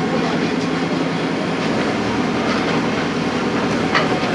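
An engine running steadily with a fast, chugging rhythm, with a couple of sharp metallic knocks near the end.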